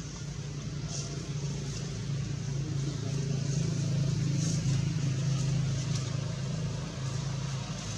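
Low hum of a motor vehicle's engine, swelling in the middle and easing off toward the end.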